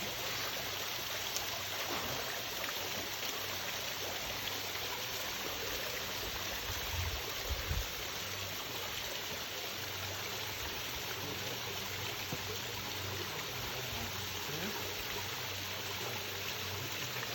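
Steady rushing of a waterfall, falling water spread evenly over the whole range. A couple of brief low thumps come a little past the middle.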